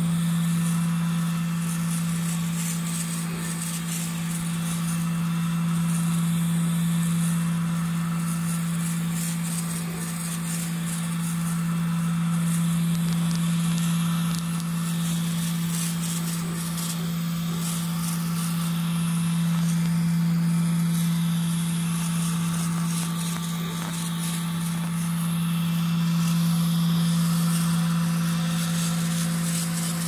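K40 CO2 laser engraver running: a steady low hum with a hiss of air over it.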